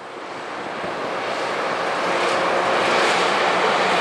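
Loram rail grinder train moving along the track, a dense steady roar that builds over the first couple of seconds and then holds.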